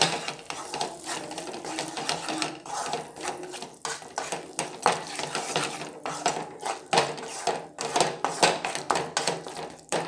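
Wooden spatula scraping and knocking against a metal kadai, stirring a thick onion-masala paste as it fries, in quick irregular strokes.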